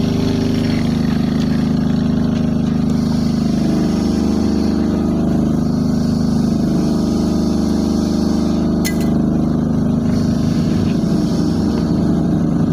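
An engine running steadily at an even speed, with one short click about nine seconds in.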